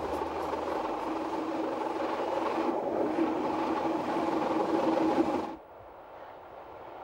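Metre-gauge electric train running along the track, heard from the front of the train: a steady rolling rumble of wheels on rails with a steady hum. About five and a half seconds in it cuts abruptly to a much quieter train sound from a distance.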